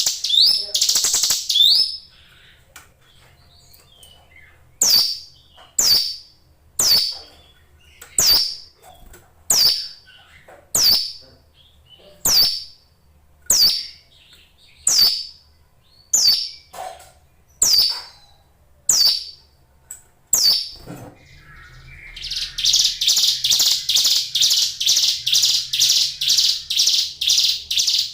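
A ciblek gunung (a prinia songbird) calling: sharp single notes, each sweeping quickly downward, repeated about once a second. Near the end it breaks into a fast, buzzy run of about three notes a second lasting several seconds.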